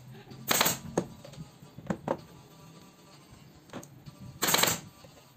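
Pneumatic upholstery staple gun driving staples through fabric into a wooden sofa frame: several sharp shots, with two louder, longer bursts about half a second in and near the end.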